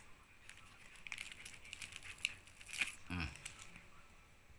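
Faint crinkling and light clicks of clear plastic wrapping and a plastic sleeve being handled as an old banknote is taken out, with a brief falling hum from a person about three seconds in.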